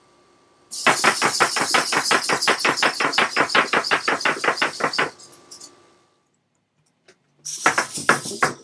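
A hexapod robot's hobby servos moving its legs in rapid, evenly spaced jerky strokes, about six a second, stopping abruptly about five seconds in. A second short burst of the same strokes near the end.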